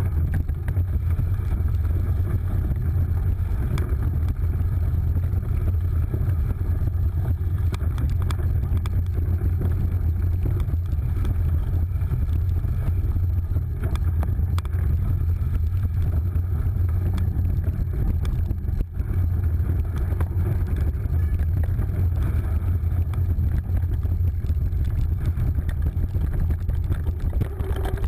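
Cyclocross bike riding over a dirt course, heard from a handlebar-mounted camera: a steady low rumble of wind buffeting the microphone and knobby tyres rolling on dirt, with a few faint clicks from the bike.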